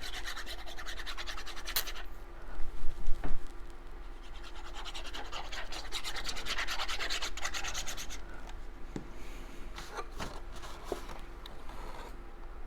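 Cardstock scratching and rubbing against paper and the work surface as cut pieces are handled and pressed together for gluing. About two seconds in there is a louder run of a few quick scrapes.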